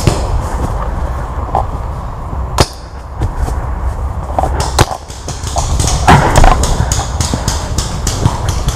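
Two sharp pops of paintball markers firing, about two and a half and five seconds in, over a steady rumble of wind and movement on the camera, with a louder scuffle of movement about six seconds in.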